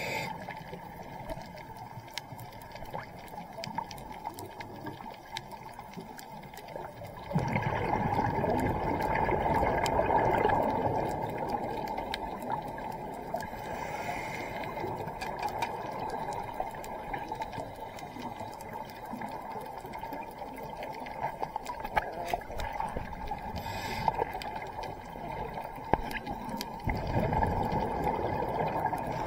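Scuba diver breathing through a regulator underwater: a rush of exhaled bubbles about seven seconds in, and another near the end, with short hissing inhales between them. Under it runs a faint, steady crackle from the reef.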